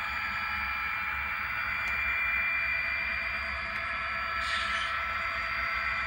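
HO scale model train running on the layout: a steady whine over hiss, with a brief higher hiss about four and a half seconds in.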